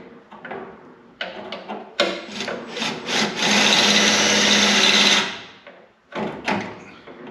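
A drill runs steadily for about three seconds, boring a 1/4-inch hole through the top layer of a sheet-steel panel to make a plug-weld hole. Handling clicks and knocks come before and after it.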